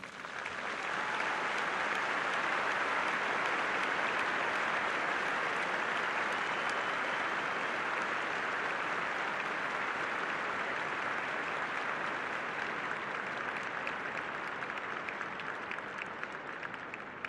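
Large stadium crowd applauding. The applause swells within the first second, holds, and slowly thins toward the end, where single claps stand out.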